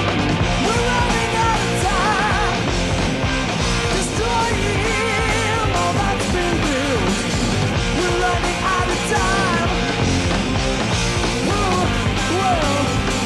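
A heavy metal band playing live: distorted electric guitars, bass and drums, with a male lead singer's vocals over them.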